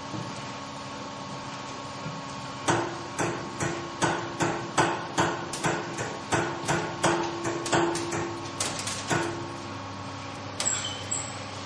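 Cow being milked: an even run of sharp, short strokes, about two a second, each with a brief ringing tail, starts a few seconds in and stops near the end, over a steady machinery hum.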